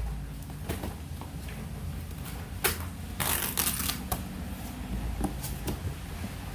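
Cardboard box being opened and its contents handled: scattered clicks and knocks, with a burst of rustling a little over three seconds in.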